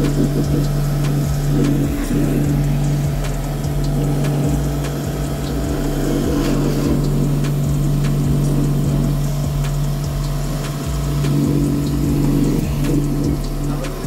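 Jet-spray pressure washer running steadily while its gun sprays water onto a split air conditioner's outdoor unit. There is a steady motor-pump hum under the hiss of the water jet, with a brief dip in the hum about two seconds in.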